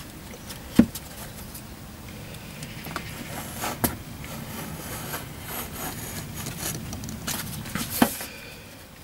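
A sharp knife blade drawn through leather along the steel back of a handsaw, a steady rough scraping. Three sharp clicks stand out: one about a second in, one near the middle and one near the end.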